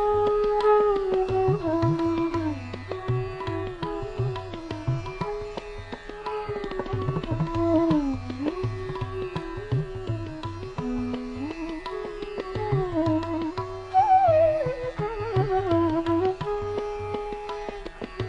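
Indian classical instrumental background music: a melodic lead that slides between held notes, over a steady tabla rhythm.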